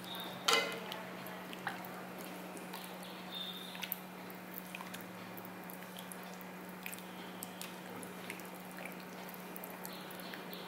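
Pearl millet halwa cooking in thick syrup in an aluminium kadai, giving small wet pops and squelches as a ladle stirs it. A sharp knock of the ladle against the pan about half a second in, over a steady low hum.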